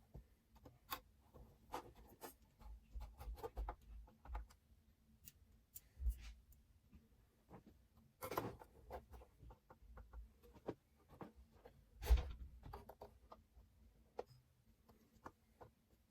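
Scattered light clicks, taps and rubbing of hands handling small computer parts inside a PC case, with louder knocks about six, eight and twelve seconds in.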